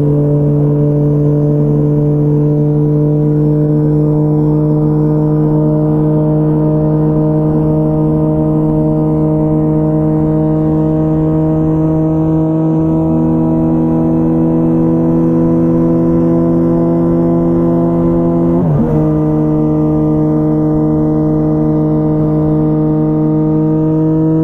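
2004 Honda CBR1000RR Fireblade's inline-four engine running through a Jardine titanium exhaust, held steady at highway cruise with the pitch slowly creeping up. About three-quarters of the way in, the pitch dips briefly and comes straight back.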